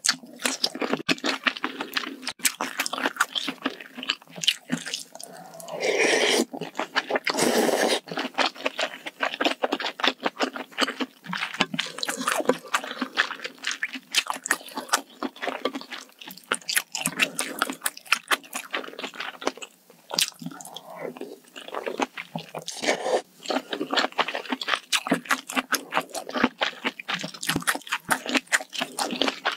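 Close-miked eating sounds: wet chewing and crunching of mouthfuls of spicy malatang hot pot, with sips of broth from a spoon. A longer noisy stretch comes about six seconds in.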